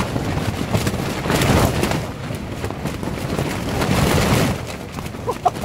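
Tent fabric flapping and snapping hard in strong gusts of wind, with the wind rushing over the tent. The gusts surge about a second and a half in and again around four seconds in.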